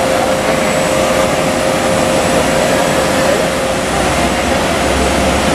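Airbus A330-300 airliner's twin jet engines running at takeoff power as it begins its takeoff roll: a steady rushing noise with a constant mid-pitched whine, the low rumble growing slightly stronger about four seconds in.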